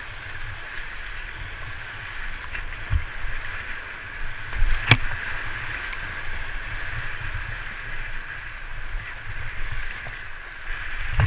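Rushing whitewater of a class II–III rapid heard from a kayak running through it, a steady rushing hiss over a low rumble. A sharp knock about five seconds in, with a few softer knocks around it.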